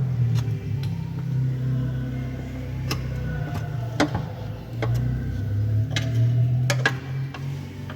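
A steady low motor hum, with a few sharp clicks and knocks over it, the loudest about three seconds in, four seconds in and twice near the end.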